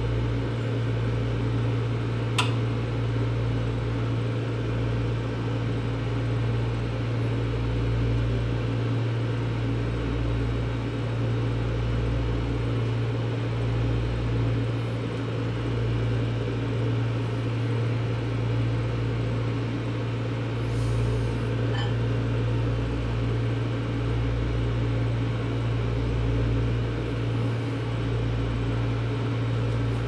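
Microwave oven running with a clump of hair inside: a steady low hum with fan noise over it, and one sharp click about two and a half seconds in.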